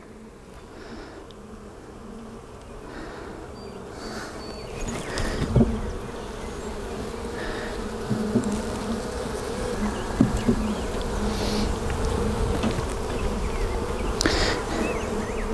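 Honey bees from an open hive buzzing steadily, the hum growing gradually louder, with a couple of short knocks partway through.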